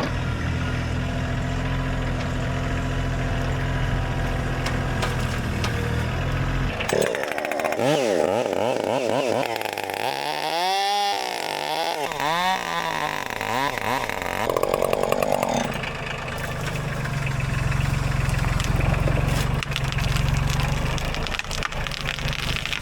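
A low engine idles steadily. About seven seconds in, a chainsaw revs up and down repeatedly for roughly nine seconds as it cuts into a pine tree. The low steady engine sound then continues.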